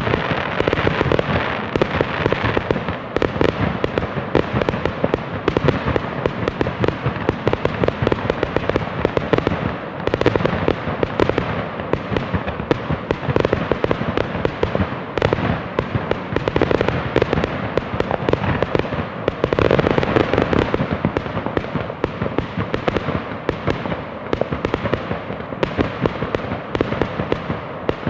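Fireworks going off in a dense, continuous barrage: rapid overlapping pops, bangs and crackles with no break.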